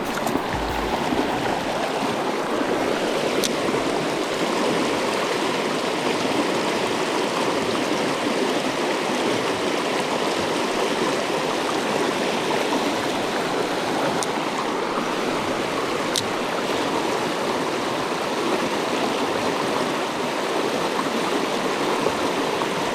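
Steady rush of a mountain trout creek's flowing water, with a couple of faint clicks.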